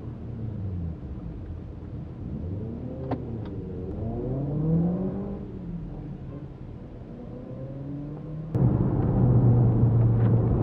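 Ford Focus ST Estate engine heard from inside the cabin, its pitch rising and falling as it revs and pulls away in low gear. A little over eight seconds in, the sound jumps abruptly louder into a steady engine drone under hard acceleration.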